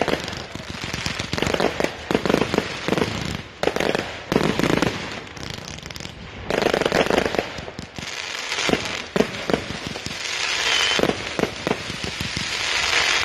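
Consumer fireworks firing in quick succession: repeated bangs of shells bursting in the air, with crackling. Near the end the bangs give way to a growing steady crackling hiss.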